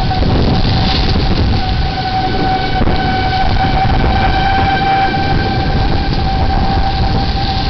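Outdoor tornado warning siren holding one steady tone, strongest in the middle and fading a little near the end, over storm wind buffeting the microphone and rain.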